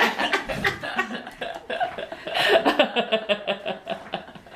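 People chuckling and vocalising quietly, with a short cough among them.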